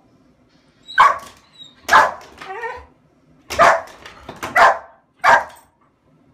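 A dog barking at something outside the window: about five loud, separate barks roughly a second apart.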